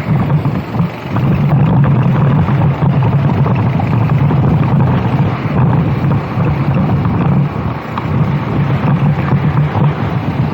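Go-kart engine running at racing speed, easing off briefly about a second in and again near eight seconds, with wind buffeting the microphone.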